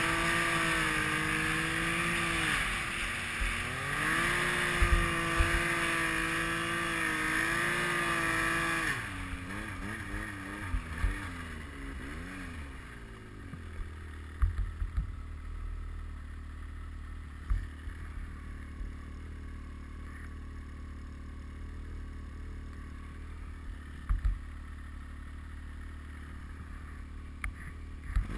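Yamaha Nytro snowmobile's four-stroke triple engine running hard under throttle, its note dipping briefly about three seconds in. About nine seconds in the throttle is released and the engine note falls away to a low rumble, with occasional thumps.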